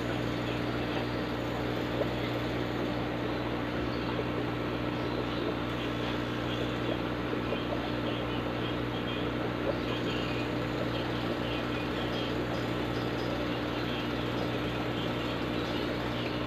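Steady low hum with an even hiss beneath it, typical of an aquarium air pump running a sponge filter.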